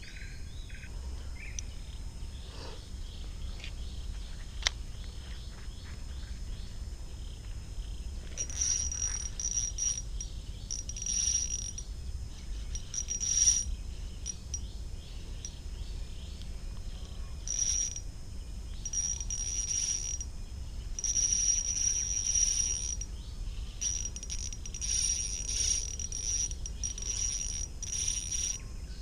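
Insects buzzing in irregular pulses of a high steady tone, starting about eight seconds in, over a constant low rumble. There is a single sharp click near five seconds.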